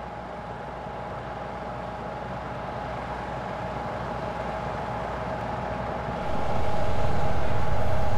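A steady mechanical hum slowly grows louder. About six seconds in, a louder, deeper engine rumble takes over: an armoured vehicle's engine running.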